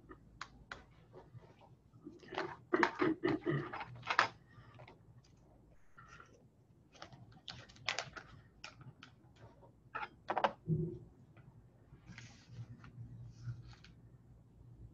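Irregular clicks, taps and light knocks of a plastic weigh boat and lab tools being handled while the boat is set on a balance and tared for weighing. There is a busier run of clicks a few seconds in, another about ten seconds in, and a short rustle near the end.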